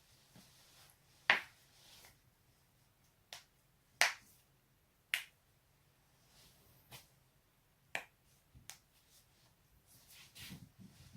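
Joints being cracked: a string of about seven sharp, short pops at uneven intervals, the loudest two about a second in and about four seconds in.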